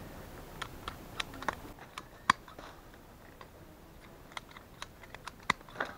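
Pruning shears snipping through the stem ends of oak twigs: a string of sharp, irregular clicks, the loudest about two seconds in.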